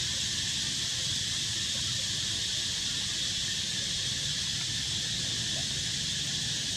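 A steady high-pitched hiss that holds level throughout, with a low hum underneath.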